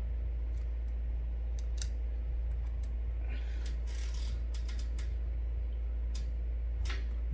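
A few sharp small clicks and a brief scraping rustle of a screwdriver and screws being handled on an opened laptop's chassis, over a steady low hum.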